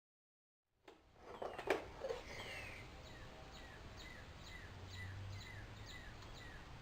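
After a second of dead silence, faint room sound with a knock, then a small bird chirping over and over, about two short falling chirps a second.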